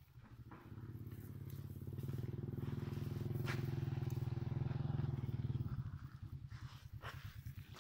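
A small engine running, growing louder over the first few seconds and then fading about six seconds in, with a couple of sharp clicks over it.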